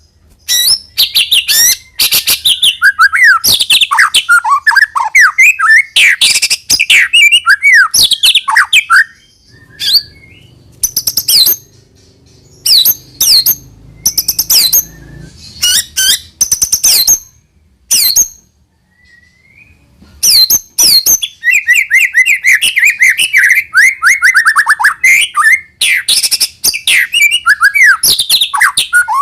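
White-rumped shama singing a loud, varied song of sharp clicking notes and quick whistled phrases, with a long fast trill in the second half and a few brief pauses.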